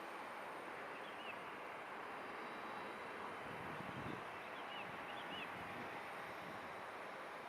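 Steady, fairly faint outdoor rush with a few short bird chirps, one about a second in and a small cluster around five seconds in.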